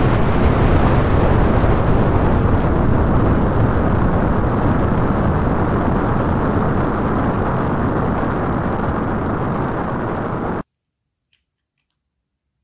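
Military rocket launcher's rocket blast, a loud continuous rushing rumble, heaviest in the low end. It fades slowly and cuts off abruptly about ten and a half seconds in.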